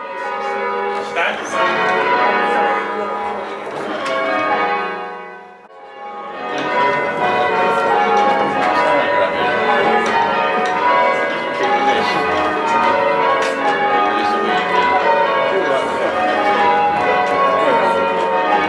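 A ring of church tower bells being change rung, many bells striking one after another in a dense, overlapping sequence. The sound thins and dips briefly about five to six seconds in, then the full ringing resumes.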